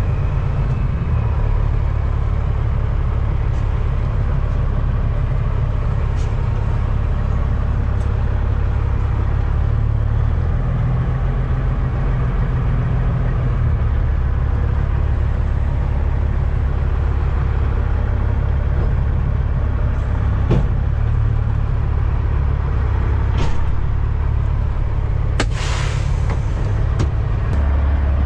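Cat C15 six-cylinder diesel engine of a Peterbilt 389 semi truck running at low speed, a steady low drone that shifts in level a few times. A single sharp knock comes about twenty seconds in, and a short hiss of air follows near the end.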